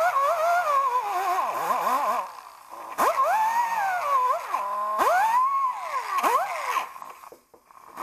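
Pneumatic angle die grinder with a sanding disc whining as a small door-lock part is pressed against it, its pitch sagging under load and rising again as it frees up. Twice the trigger is let off and the tool spins down to near silence, about two seconds in and again near the end, then starts back up with a rising whine.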